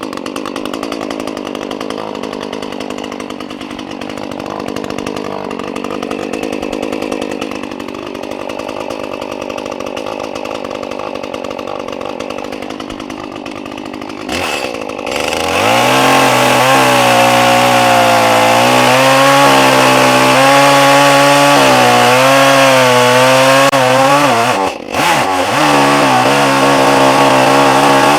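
ECHO CS-310 two-stroke chainsaw running. About halfway through it gets louder and its note drops and wavers as it bogs under load cutting the felling notch into the trunk. It eases off briefly near the end, then carries on cutting.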